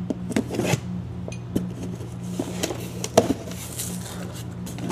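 Hot Wheels cars in their plastic blister packs clicking and knocking as they are handled and pulled from the cardboard case, with one sharper knock about three seconds in. A steady low hum runs underneath.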